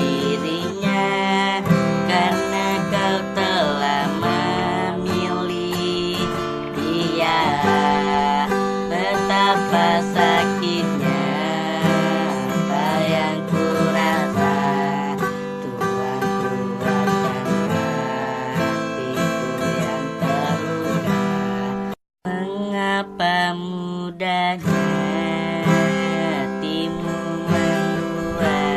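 Singing with a strummed acoustic guitar. The sound cuts out completely for a moment about three-quarters of the way through.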